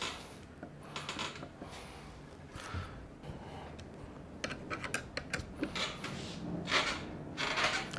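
Faint clicks and rubbing of small metal hardware as washers and a bolt are fitted to an electric skateboard's steering knuckle and a hand driver turns the bolt, with a quick run of small clicks about halfway through and two longer scraping rubs near the end.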